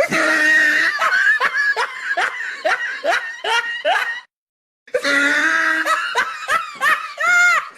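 Laughing sound effect: high-pitched cackling laughter in quick repeated ha-ha strokes. It comes in two pieces, broken by a short silence about four seconds in.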